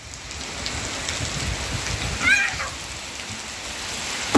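Steady rain pouring onto a wet rooftop terrace, with one short, high child's call about halfway through.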